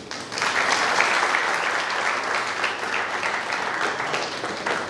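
An audience clapping. The applause breaks out suddenly about half a second in, holds steady, and eases slightly near the end.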